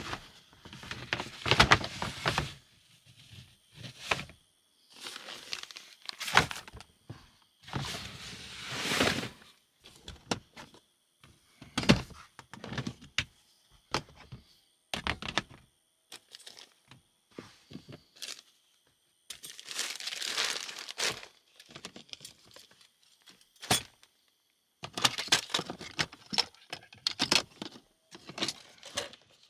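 Rummaging through plastic storage totes: hard plastic lids knocking and sliding, with rustling of packed items, in irregular bursts with short pauses.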